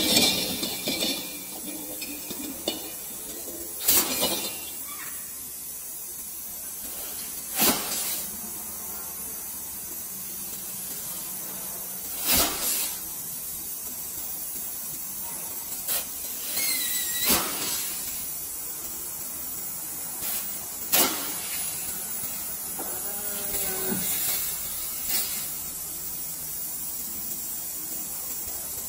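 Steady hiss of pressurised gas blowing through a refrigerator's copper capillary tube to flush it clean. Short sharp sounds come about every four seconds.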